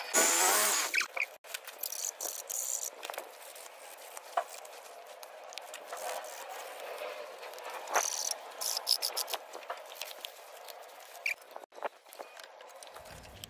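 Small scraping and rubbing as the edge of a copper piece is filed, with scattered metal clicks and taps as copper parts are handled.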